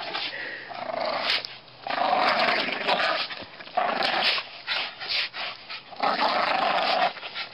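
A dog vocalising in about six rough, noisy bursts, each half a second to a second long, with short pauses between them.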